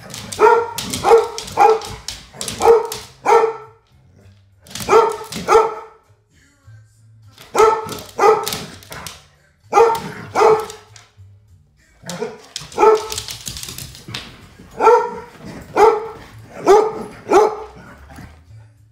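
A dog barking repeatedly in play, in quick clusters of two to six sharp barks with short pauses between them.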